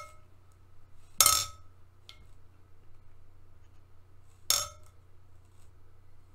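Marbles clinking as they are dropped into small liquid-filled containers in a glass dish: two sharp clinks with a brief ring, about three seconds apart, and a faint tick between them.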